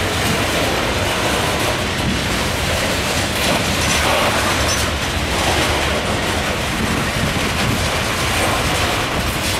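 Loaded coal hopper cars of a freight train rolling past close by: the steady noise of steel wheels running on the rails, even throughout.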